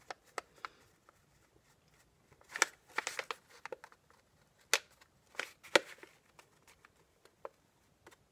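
Fingers smoothing soft clay on a cup formed around a newspaper-wrapped pipe: scattered faint rubs, ticks and paper crinkles, with a few louder crinkles in the middle.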